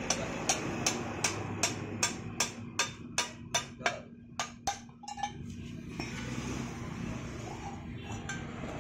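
Hand hammer striking a red-hot iron bar against a steel bending jig, about a dozen quick, even metal-on-metal blows, roughly two to three a second. The blows bend the bar into a curl around the jig. They stop about five seconds in.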